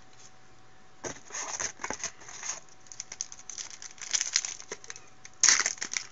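Foil wrapper of a 2012 Bowman Platinum baseball card pack crinkling and tearing as it is handled and opened. It starts about a second in, comes in irregular crackles and gets loudest near the end.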